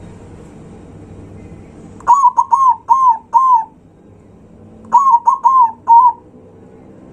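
Zebra dove (perkutut) singing loudly: two phrases of quick, ringing cooing notes, four or five to each phrase, about three seconds apart.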